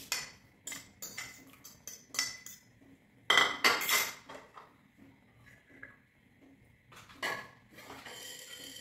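Kitchen utensils clinking against dishes: a scattered series of short, ringing clinks, loudest in a cluster about three and a half seconds in, with another strike around seven seconds.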